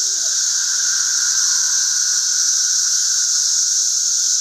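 A chorus of periodical cicadas: a steady, loud, high-pitched drone from countless insects at once, with a lower humming band beneath it that does not change.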